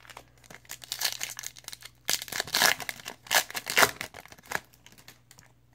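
A trading-card pack wrapper being torn open and crinkled by hand. Crackling rustle runs for about four seconds, loudest in the middle, then dies away near the end.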